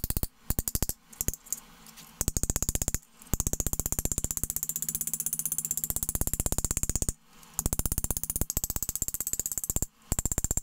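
Hand hammer striking a bent sheet-metal channel held over an anvil edge, in fast, even runs of light taps lasting a few seconds each, broken by brief pauses. The metal rings with each blow. The overbent corner is being straightened by striking just off to either side of its crown.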